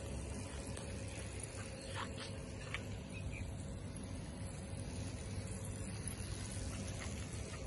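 Steady low rumble of outdoor background noise, with a few faint short chirps or clicks about two to three seconds in.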